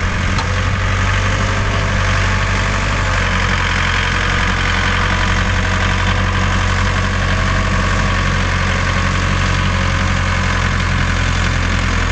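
Enfly DQ404 tractor's diesel engine running steadily at idle, with an even, unchanging drone.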